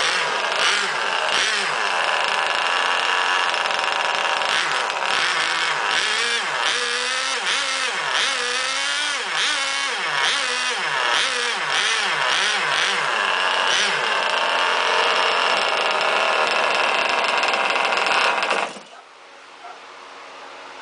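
Small two-stroke model boat engine running loud and high-pitched. In the middle it revs up and down over and over, then holds a steady speed, and near the end it cuts off abruptly.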